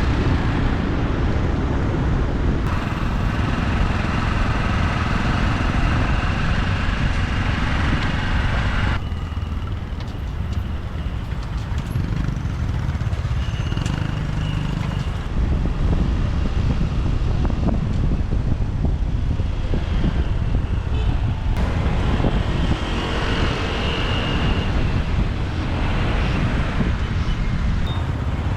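Motorbike riding through city traffic: steady engine and road noise with wind on the microphone, and other vehicles around.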